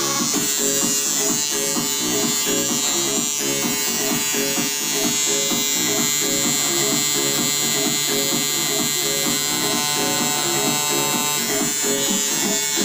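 Tattoo machine with a 7RL round liner needle buzzing steadily as it pulls lines into an EVA foam practice sheet.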